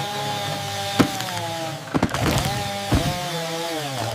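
Chainsaw cutting through a log, its engine pitch dipping under load and recovering, with sharp knocks about one, two and three seconds in.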